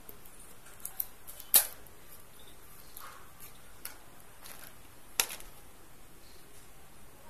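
Hands handling a smartphone box and picking at its plastic shrink-wrap: light crinkling and small scraping ticks, with two sharp clicks, the louder about one and a half seconds in and another about five seconds in.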